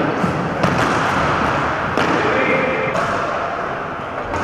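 Ball hockey play in a gymnasium: two sharp knocks of stick and ball, under a second in and about two seconds in, over the hubbub of players' voices and feet.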